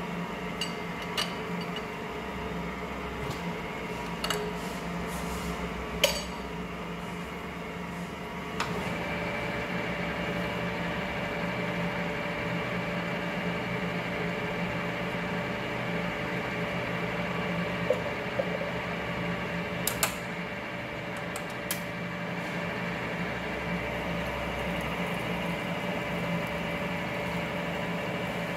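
Ward 2A capstan lathe running steadily with a gear hum, with a few sharp metallic clicks and clinks from its levers and tooling. About a third of the way through the running note shifts and grows a little louder.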